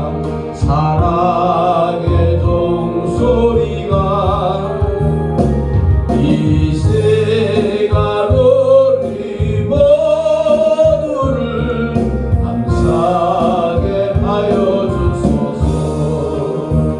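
A slow Korean gospel hymn sung with vibrato over an instrumental accompaniment.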